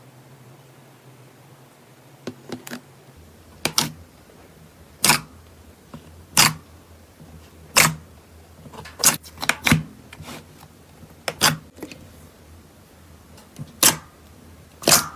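Slime being pressed and poked, giving sharp, short clicking pops about every second or so, over a faint low hum.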